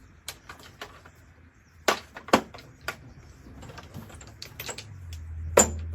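Sharp metallic clicks and clinks of hand tools, sockets and bolt hardware being handled, a dozen or so separate strikes, with a low steady hum coming in near the end.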